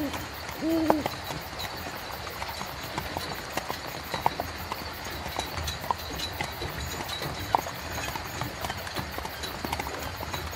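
Horse hooves clip-clopping at an uneven walk, as of a horse-drawn carriage, over a steady low rumble. Near the start there are two short hooting calls.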